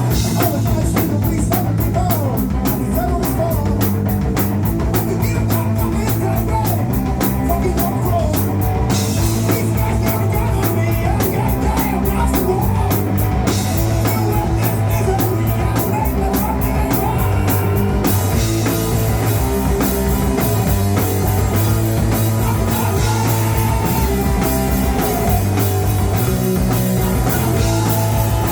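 A loud live rock band playing a song: electric guitars and bass over fast drums. The cymbal wash gets louder about a third of the way in, drops back, and swells again from about two-thirds of the way through.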